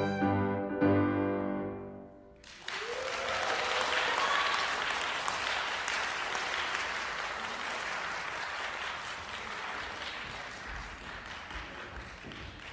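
Violin and piano sound the final chords of a piece, which ring and die away about two seconds in. An audience then breaks into applause that carries on and slowly fades.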